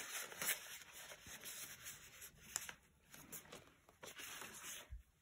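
Soft paper rustling and light taps as the pages, flaps and tucked card of a handmade paper junk journal are handled.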